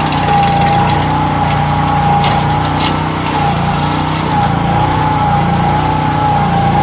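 A small engine running steadily, with a high whine over its drone; it cuts off abruptly at the end.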